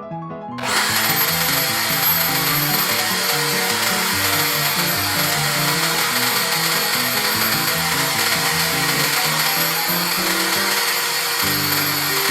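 An electric power tool running steadily for about eleven seconds with a constant high whine, starting abruptly about half a second in and stopping at the end, over piano background music.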